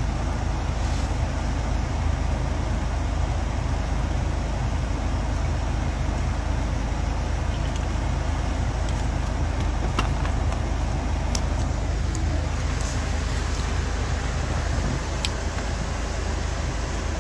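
Steady low rumble of road and engine noise heard inside a moving car's cabin, with a few faint clicks in the second half.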